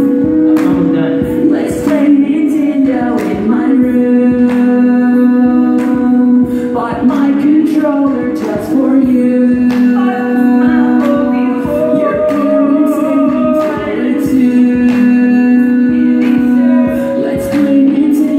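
A solo voice singing into a microphone through a PA, holding long notes, some with vibrato, over a rhythmic accompaniment of short sharp strokes.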